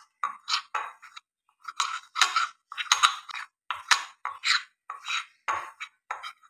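Metal fork stirring and scraping cornflour mixed with a little glue in a bowl, working the powder into a clay dough. It comes as short scraping strokes, about three a second, with a brief pause a little over a second in.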